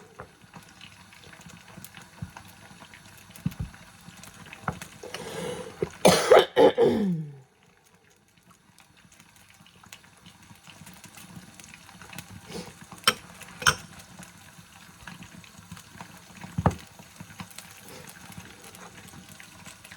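A person coughing hard, a rough burst with the voice sliding down in pitch at the end; after a brief break come scattered light clicks and knocks.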